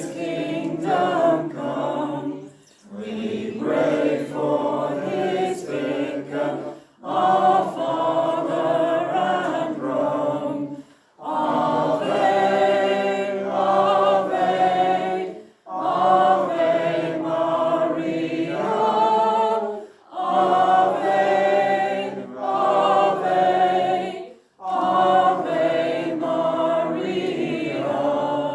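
A choir singing a hymn unaccompanied, in phrases of about four seconds with short breaths between them.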